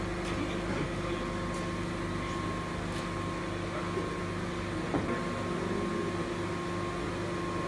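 Steady running hum of a melamine lamination hot press line, several held tones over a low drone, with a few brief sharp clicks and knocks, the loudest about five seconds in.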